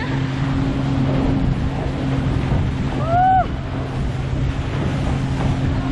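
Wind buffeting the microphone and water rushing and spraying as the banana boat is towed at speed, over the steady drone of the towing motorboat's engine. About three seconds in a rider lets out one short high cry that rises and falls.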